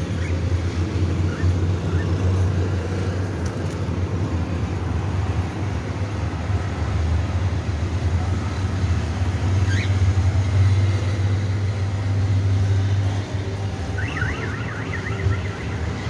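A steady low rumble throughout. Over it, a cockatiel gives one short chirp about ten seconds in and a quick run of chirps near the end.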